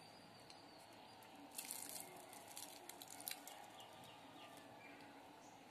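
Near silence: room tone with a few faint ticks and some faint distant bird chirps around the middle.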